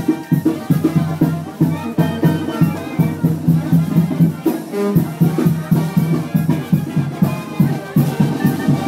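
Brass band playing lively festive music over a steady drum beat.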